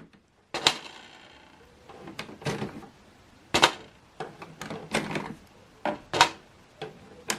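Plastic clicks and knocks from ink cartridges being unclipped and pulled out of an Epson WF inkjet printer's cartridge holder. There are about ten separate sharp clicks, spread unevenly with short pauses between them.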